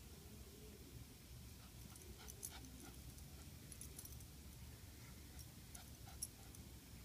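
Near silence with a few faint, short whines from a small fluffy white dog and a few light clicks.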